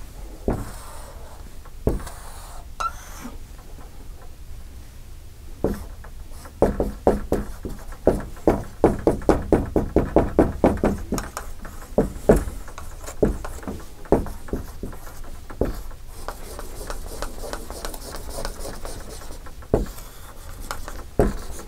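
Dry-erase marker on a whiteboard: scattered short taps and strokes while words are written, and a run of rapid back-and-forth strokes, about four a second, for some five seconds from around six and a half seconds in as an arrow is filled in.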